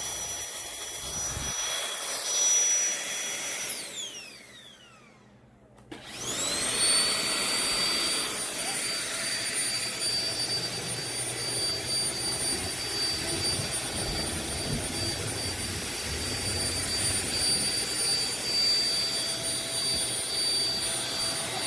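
DEENKEE cordless stick vacuum's motor running with a high whine, switched off about 4 s in so the whine falls away as the motor spins down. About two seconds later it is switched back on and spins up quickly to a higher-pitched whine, then runs steadily.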